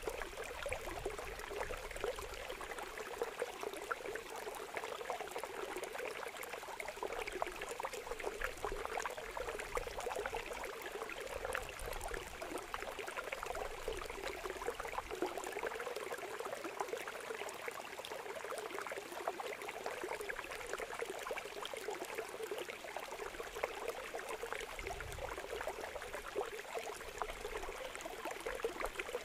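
Water running steadily through a channel cut in a mud bank and spilling into a fish-trap pit, a continuous rushing and splashing with many small spatters.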